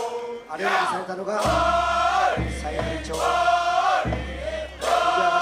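A group of men singing a song together in unison, with long held notes. A low rumble sits under the singing for a couple of seconds in the middle.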